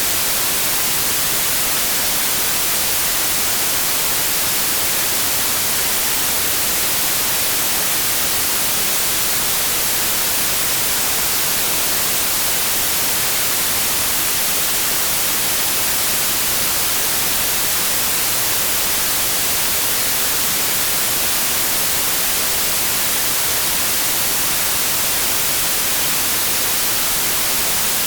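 Steady white noise: an even, unchanging hiss, brighter toward the high end.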